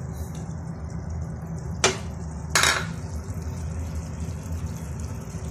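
A kitchen utensil knocks against a nonstick frying pan twice, sharply, a little under a second apart about two seconds in, the second knock slightly longer. A steady low hum runs underneath.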